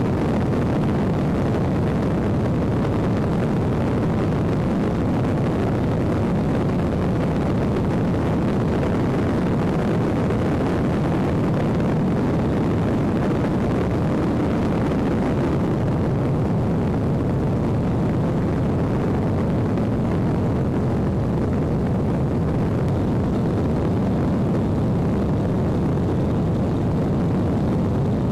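Steady drone of an airplane's engine and rushing air, heard from inside the cabin.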